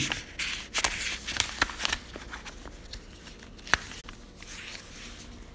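Paper rustling as book pages and loose sheets are handled and turned. It is busiest in the first two seconds, then quieter with a few light clicks and one sharp click just before four seconds in.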